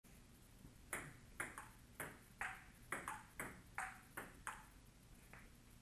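Table tennis rally: a plastic ball clicking off rubber paddles and the JOOLA table in quick alternation, about a dozen sharp pings roughly two a second. The rally starts about a second in and stops a little after four and a half seconds, with one last faint tick near the end.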